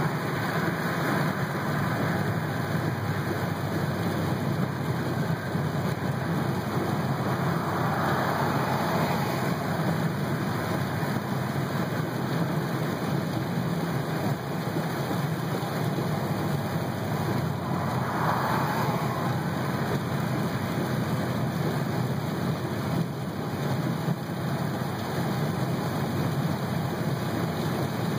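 Steady road noise inside a car driving on a wet highway in heavy rain: tyres on the wet road and rain on the car blend into one continuous hiss. It swells briefly about eight and eighteen seconds in.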